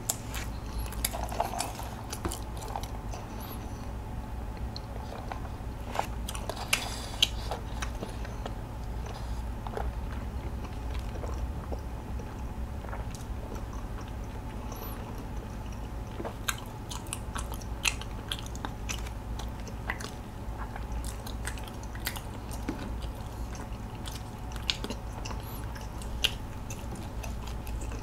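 Close-miked chewing of a mouthful of sausage pretzel, with wet mouth clicks and smacks at irregular intervals over a steady low hum.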